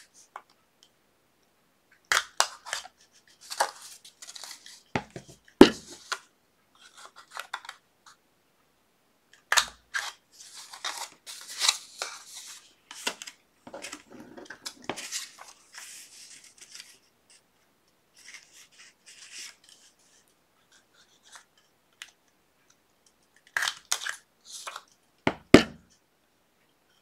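Paper rustling and scraping with scattered clicks as a corner rounder punch is worked on the flap's corners, with two sharp, loud snaps, about five and a half seconds in and near the end. The punch is stiff and hard to work.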